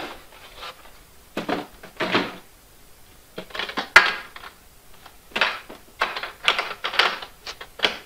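Polystyrene beehive outer cover being set on the hive body and its metal latch fastened: a string of light knocks and clicks, with one sharp click about four seconds in and quicker clicks near the end.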